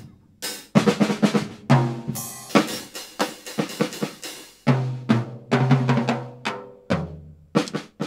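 Acoustic drum kit played in a busy, fast pattern of drum and cymbal strikes, with low drums ringing on briefly after some hits. The strikes stop shortly before the end.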